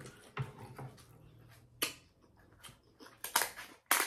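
A person eating seafood boil close to the microphone: chewing and mouth sounds, with a few short, sharp clicks spread through.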